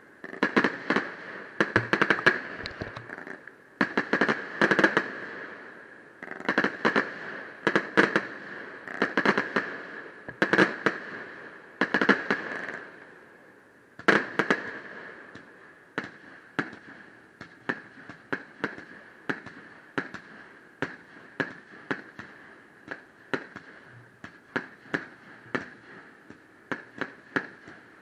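Aerial firework shells bursting: clusters of sharp bangs with echoing tails, then from about halfway a quicker, even string of smaller pops, roughly two a second.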